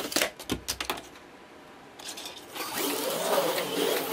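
Viper V1 HO slot car with a 2.5-ohm outlaw armature running laps on a plastic track, a steady high buzz. A few sharp clicks come in the first second, then it goes quiet for about a second and a half before the car runs again from about two and a half seconds in.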